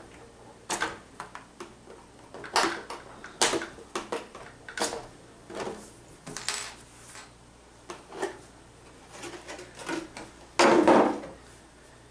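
Scattered clicks and light plastic knocks from handling an RC short course truck's body shell as it is taken off the chassis, with a louder, longer rattle near the end.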